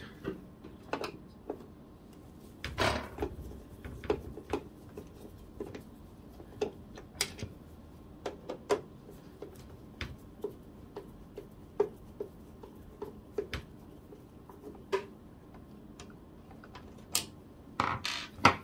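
Light, irregular clicks of a screwdriver working at a screw in a laser printer's side frame, about one or two a second, with a louder knock about three seconds in and a louder clatter near the end.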